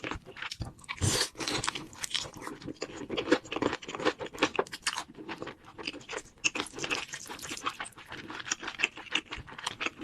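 A person biting and chewing crunchy food, with many short, irregular crunches in quick succession.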